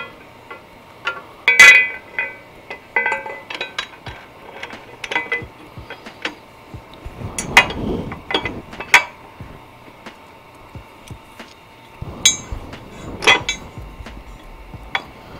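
Metal clinks and knocks of a motorcycle engine guard and its bolts being handled and fitted against the frame, scattered and irregular. The loudest clink comes about a second and a half in and rings briefly, with further sharp knocks near the middle and about twelve seconds in.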